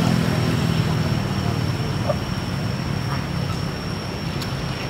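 Outdoor background of a steady low engine hum from nearby road traffic, easing off slightly, with a thin steady high whine above it.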